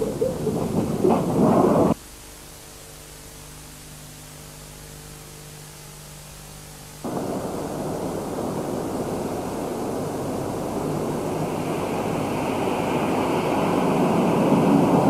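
A loud rumbling noise cuts off abruptly about two seconds in, leaving only a faint steady hum. About seven seconds in a steady rumble starts up and swells steadily, with a higher hiss joining about halfway: a train running on rails as it approaches.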